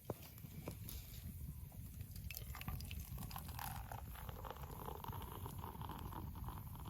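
Distant coyotes howling, a drawn-out chorus rising faintly about halfway through and holding for about three seconds, over a low rumble and scattered small clicks.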